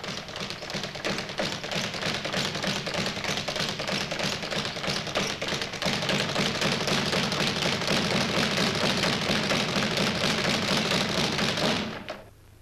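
Speed bag hit in a fast, continuous rattle of sharp knocks as the leather bag rebounds off its wooden platform, like pistol shots; it stops suddenly near the end.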